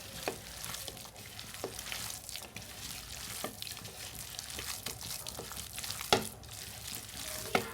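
Hands mixing and kneading a wet pakoda batter of soaked bread, flour and chopped onion in a bowl: a steady wet rustle with several light knocks, the loudest about six seconds in.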